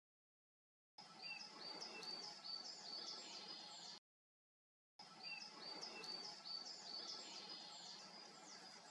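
A songbird singing faintly: a run of high, short, repeated notes, about three a second, for some three seconds, then after a one-second pause the same run again, over a low steady forest hush.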